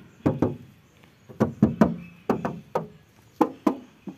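Fingers knocking on the steel body panels of a 1994 Suzuki Katana GX, about a dozen raps in quick twos and threes, each with a short ring. The knocks sound the panels out as bare sheet metal all round.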